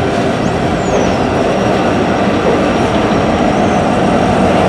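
Norfolk Southern empty coal train rolling past close by: a steady rumble of steel wheels on rail and hopper cars, with mid-train diesel locomotives, SD70ACe units, coming past. Faint high wheel squeals come and go.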